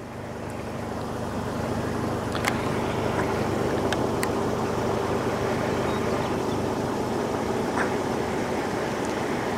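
A vehicle's engine running with a steady rushing noise over it. The noise builds over the first two seconds, and a few light clicks come through.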